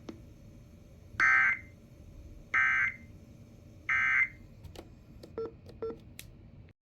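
Emergency Alert System end-of-message code: three short, identical bursts of warbling digital data tones, a little over a second apart, marking the end of the severe thunderstorm warning broadcast. A few faint clicks follow near the end.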